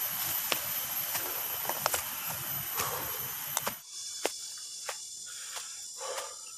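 Insects shrilling steadily and high-pitched in tropical vegetation, with scattered clicks and rustles. About four seconds in the sound drops away suddenly at a cut, leaving a quieter high insect chorus with a few clicks.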